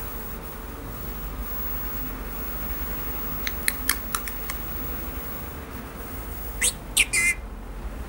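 Senegal parrot talking in its small, soft voice, mimicking "peek-a-boo" as three quick high syllables about two-thirds of the way in. A few faint clicks come a little before the middle.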